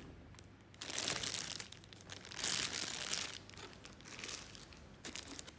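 Plastic packaging crinkling and rustling in several irregular bursts as the intercom's outdoor station is unwrapped.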